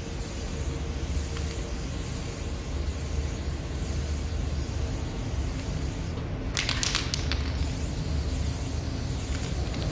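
Aerosol spray paint can hissing steadily as paint is sprayed onto a bus body panel, with a brief break about six seconds in, over a low steady hum.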